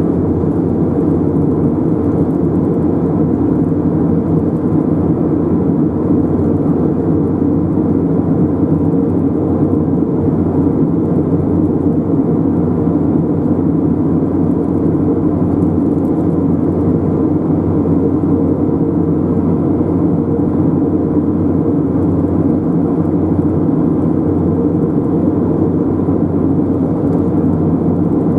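A car being driven along the road: a steady, even rumble of tyre and engine noise that does not change for the whole stretch.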